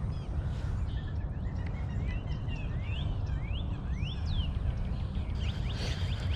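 A bird calling outdoors: a run of short, rising chirps, about six in a row, with more brief chirps near the end, over a steady low rumble.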